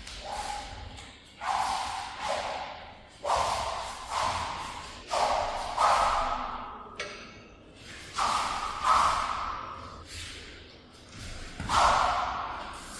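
Sword drill: a series of sudden strikes about one a second, often in pairs, each dying away over about a second, with one sharp click about seven seconds in.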